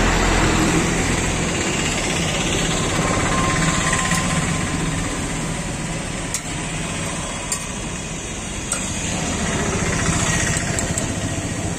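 A small engine-type machine running steadily with a fast rattle, with a few sharp clicks of a metal spatula on a flat iron griddle about four, six and a half, seven and a half and nine seconds in.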